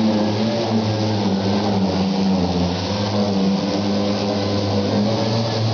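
Astro pneumatic orbital sander ('mud hog') running steadily while sanding body filler, a hum whose pitch wavers slightly, over a steady hiss.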